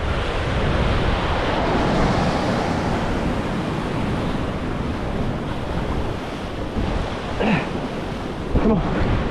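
Sea waves surging in at the shore, a steady rush of surf, with wind buffeting the microphone.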